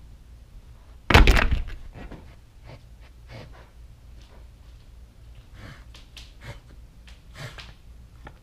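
A calico cat up against the camera: one loud thump about a second in as it bumps or brushes the microphone, then a few faint short noises from its moving close by.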